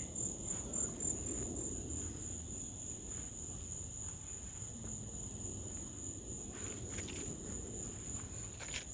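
Night insect chorus: one steady high-pitched trill, over a low rumbling background, with a couple of faint pops about seven seconds in and near the end.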